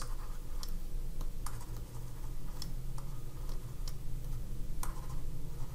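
A stylus tapping and clicking on a drawing tablet during handwriting: irregular light clicks, a few a second, over a low steady hum.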